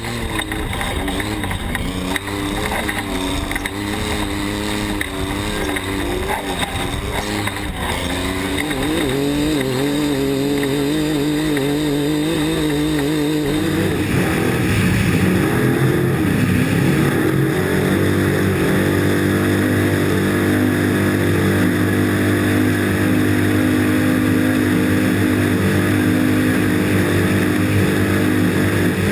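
Racing engines running: pitch rising and falling in the first half, then a louder, steadier drone from about halfway through.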